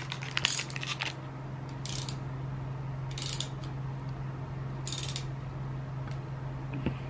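Short bursts of rapid ratchet-wrench clicking, four or five of them a second or so apart, from a bicycle being repaired, over a steady low hum.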